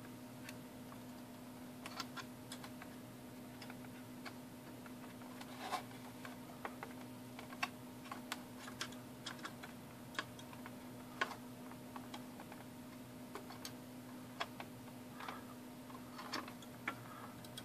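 Scattered, irregular small clicks and taps of a screwdriver and metal battery terminals against the plastic battery compartment of a digital clock, as the terminals are prodded into their slots. A faint steady hum runs underneath.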